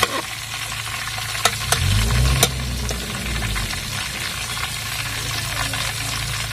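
A whole coriander-masala-coated pomfret sizzling steadily as it fries in hot coconut oil. A steel spoon moves through the oil, with a few light clicks against the aluminium pot between about one and a half and two and a half seconds in.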